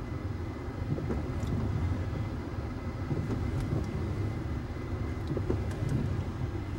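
Low, fluctuating rumble heard inside a vehicle during a tornado, with a few faint ticks.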